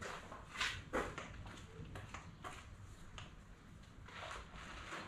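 Quiet room tone with a few faint, short knocks and rustles scattered through it.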